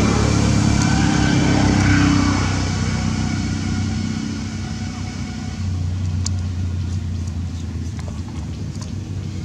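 A motor vehicle's engine going past, loudest in the first two seconds and then fading, with a steady low engine hum taking over near the end.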